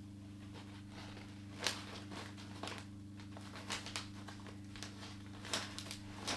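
Faint scattered clicks and rustles of things being handled, over a steady low electrical hum.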